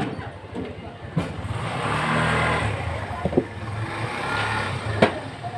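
A person snoring: two long snoring breaths, the first starting about a second in and the second a little over a second after it ends.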